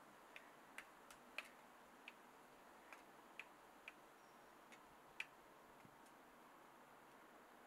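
Near silence: faint hiss with about ten small, irregular clicks, the loudest about a second and a half in and about five seconds in.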